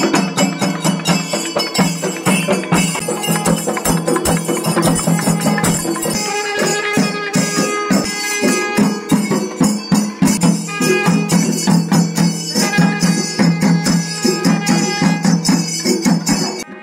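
Velakali temple percussion ensemble playing a fast, dense rhythm: many quick drum strokes with jangling metal percussion over a steady held piping note.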